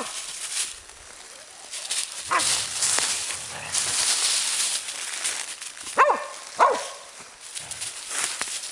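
Entlebucher mountain dogs playing: three short barks, two of them close together near the end, over the rustle of paws scrambling through dry leaves.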